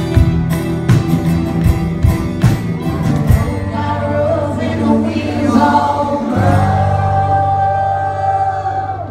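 Live folk-rock duo performing: drum beats with acoustic guitar for about the first three seconds, then the drumming stops and the singing goes on in long held notes over a sustained low chord.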